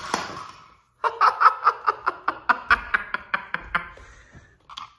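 A pullback Lightning McQueen toy car's motor whirs as it rolls across a hardwood floor, fading out within the first second. Then a person laughs in quick bursts for about three seconds.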